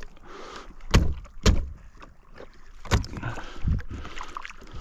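Three heavy knocks, the first about a second in, the second half a second later and the third near three seconds, over faint rustling.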